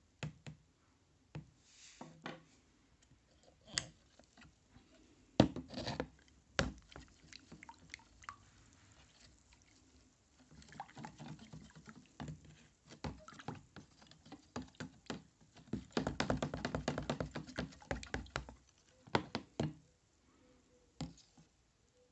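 Hand work on a small tool: scattered knocks and clicks, and a couple of seconds of rapid rubbing strokes about three-quarters of the way in.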